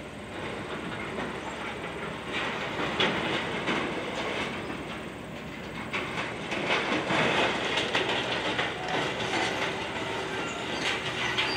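Demolition excavator tearing into a building: its engine running under a dense, continuous crunching and clattering of breaking debris.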